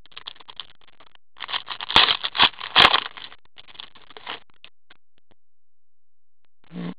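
Hockey trading cards being shuffled and flipped through by hand, a papery rustling and scraping with a few sharp clicks and snaps about two to three seconds in, thinning out after about four seconds.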